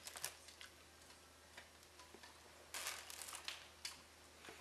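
Faint rustling and crinkling of a plastic bag as confetti is scooped out of it and dropped into a trombone bell, with a short burst of crinkling about three seconds in.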